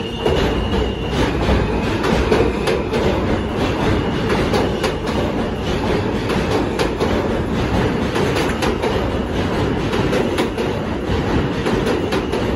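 R160 subway train pulling out of the station and rolling past on the platform track: a loud, steady rumble with quick, irregular wheel clicks over the rail joints.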